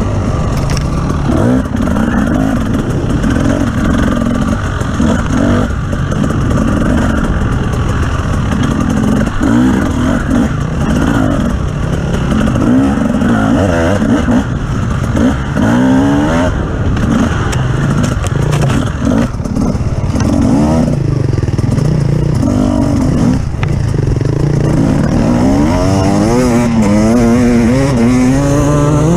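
Off-road vehicle engine running under load, revving up and down repeatedly as it is driven over rough ground, with rattling. Near the end it climbs steadily in pitch as it accelerates.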